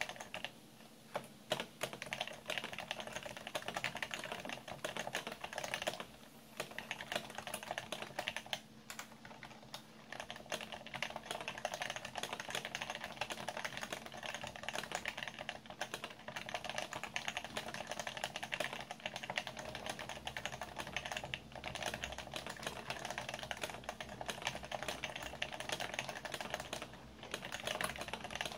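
Fast, continuous typing on an HHKB Professional 2 keyboard with Topre electrostatic capacitive switches, the keyboard resting on a soft pad, with a few brief pauses in the keystrokes.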